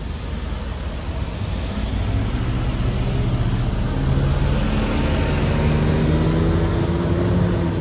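City bus engine pulling away and driving past, growing louder as it accelerates from about two seconds in, over steady traffic noise.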